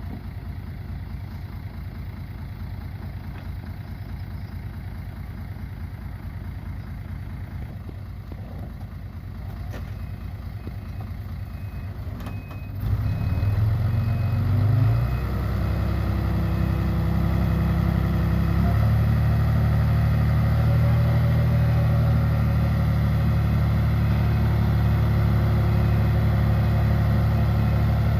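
Heavy diesel earthmoving machine engine idling, then about halfway through it revs up and settles into a louder steady run. A faint repeated beep sounds just before the rev-up.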